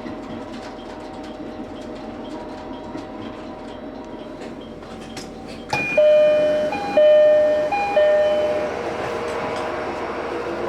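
Train running with a steady hum and light clicking. About six seconds in there is a jolt, then a two-note electronic ding-dong chime sounds three times, the kind given as a train arrives and its doors open.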